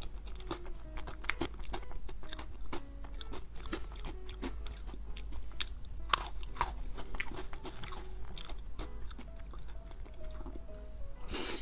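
Mouth sounds of a person eating a soft matcha cream cake: chewing with many small wet clicks, the sharpest about six seconds in. Faint background music under it.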